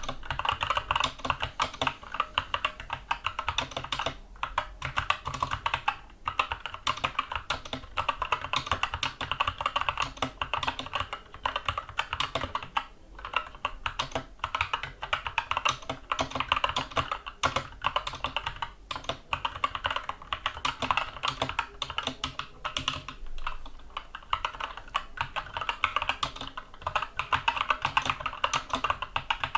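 Steady, fast typing on a Skyloong SK64 mechanical keyboard with Gateron Brown tactile switches: a dense run of key clacks, broken by a few short pauses.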